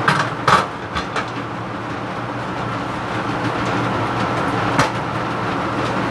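Laminar flow hood blower running with a steady hum and hiss. Over it, a few sharp clinks and knocks of the pressure canner and glass jars being handled, clustered in the first second and one more about five seconds in.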